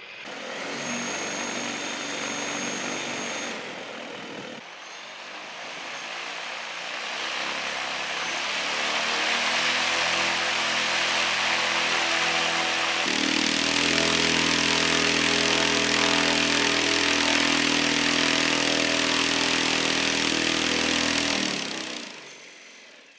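Large homemade brushless (BLDC) motor running under throttle on a thrust test, turning a propeller: a loud multi-tone whine over rushing air. It builds over several seconds, holds steady at high power, then winds down about a second before the end.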